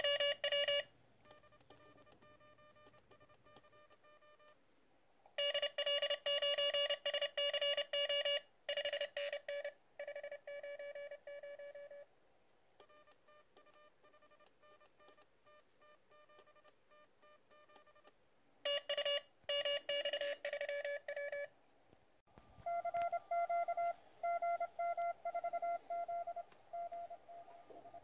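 Morse code (CW) tones keyed on and off through the QCX+ transceiver's small speaker, as strings of dits and dahs. Loud, buzzy stretches alternate with fainter ones, and about three quarters of the way through the signal changes to a slightly higher pitch.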